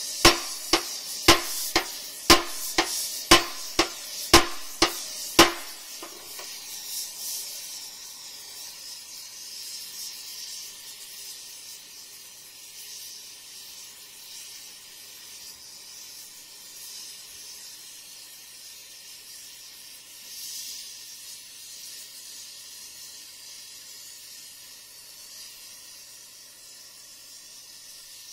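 Hammer blows ringing on the heated steel of an excavator stick, about once a second, half a dozen strikes, as the warped metal is beaten back into line. The hammering stops after about five seconds, leaving the steady hiss of a carbon arc torch played on the spot.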